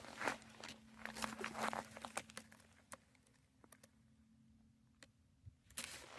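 Footsteps crunching on dry gravelly ground, faint: a quick run of crunches for about two seconds, a few scattered steps, a pause, then a couple more near the end.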